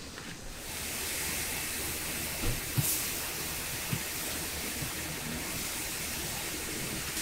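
Farrier's hoof knife paring the sole of a horse's hoof: a few soft knocks and scrapes over a steady hiss.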